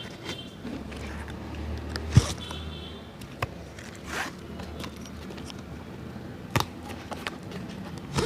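Shoe-repair handwork on an old shoe: a few short rasping strokes and sharp knocks. The loudest is a knock about two seconds in.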